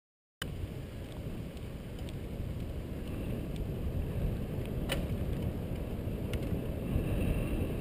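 Wind buffeting the microphone of a camera riding along on a moving bicycle, a steady low rumble that starts suddenly about half a second in and grows slightly louder. A few sharp clicks or rattles from the bike come through, the loudest about five seconds in.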